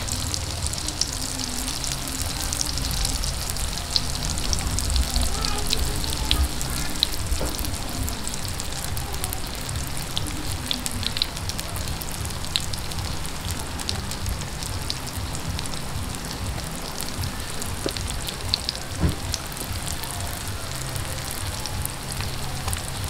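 Saba-banana spring rolls (turon) deep-frying in hot oil in a wok: a steady sizzle with fine crackling throughout.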